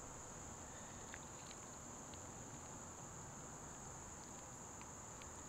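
Faint, steady high-pitched drone of insects such as crickets, with a few soft ticks.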